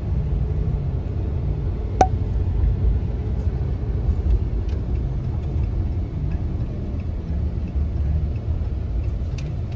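Road noise inside a moving car's cabin: a steady low rumble from the engine and tyres, with one sharp click about two seconds in.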